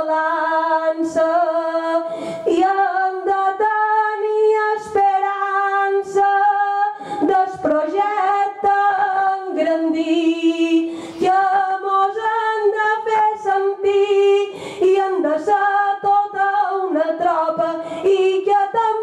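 A woman singing a Mallorcan glosa solo and unaccompanied into a microphone, drawing each syllable out over long, held notes with wavering ornaments and brief breaths between phrases.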